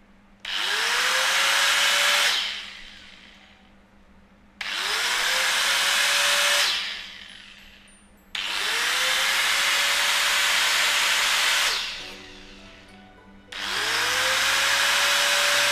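Hitachi 100 mm angle grinder with an electric brake, switched on four times with no load: each time the motor spins up with a rising whine and then runs steadily. After each of the first three runs it winds down within about a second as the brake stops it. The last run is still going at the end.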